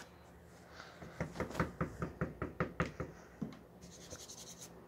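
Fingers knocking on a dried clay model toilet, about a dozen quick taps at roughly five a second, testing how hard the dried clay is. A faint rapid scratchy clicking follows near the end.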